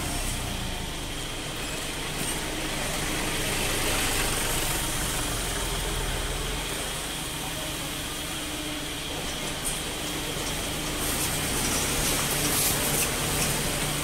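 Steady running noise of a waste-paper baling plant: the horizontal hydraulic baler and its machinery humming, with a hiss that grows brighter in the last few seconds.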